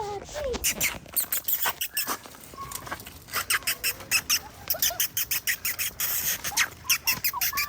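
A person making quick kissing clicks with the lips, a long run of sharp smacks several a second in bursts: a feeding call used to call greyhound puppies over.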